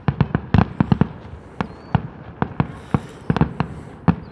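Aerial fireworks exploding in rapid, irregular succession: a dense string of sharp bangs, several a second, thickest in the first second.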